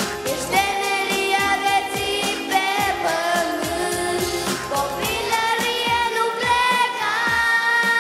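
A boy singing a pop song into a handheld microphone over a backing track with a steady beat.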